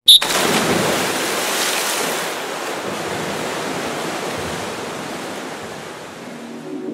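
A sudden hit, then a steady rushing noise like surf or water that slowly fades over the following seconds.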